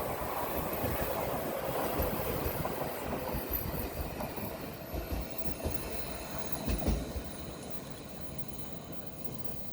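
Odakyu Line train running past on the track, wheels rumbling with a few clacks, the sound fading gradually as it moves away.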